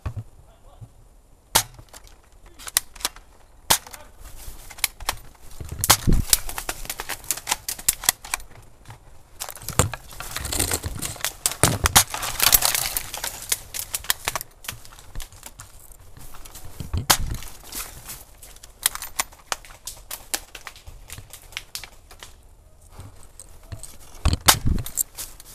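Airsoft guns firing: many sharp single shots at irregular spacing, with a denser stretch of shots and rustling brush about ten to fourteen seconds in, where palmetto fronds brush past.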